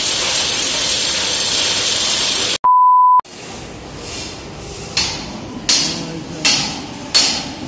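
A steady hiss is cut off by a loud half-second pure beep tone set in silence, an edit insert. Then come four sharp metallic strikes about 0.7 s apart, each ringing briefly.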